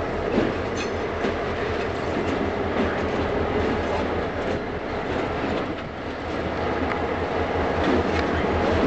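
EMD GP38-2 and GP38-3 diesel locomotives, with 16-cylinder two-stroke 645 engines, running together as a steady low drone, with a few faint clicks over it.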